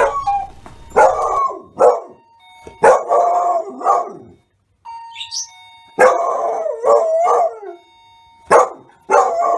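A beagle barking and baying over and over: short sharp barks mixed with longer wavering howls. An electronic doorbell tone sounds behind them, and the dog is raising the alarm at a caller at the door.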